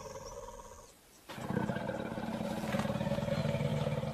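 African elephant rumbling: a deep, low call that starts suddenly about a second in and carries on. A contact call of the kind elephants use to keep in touch with each other.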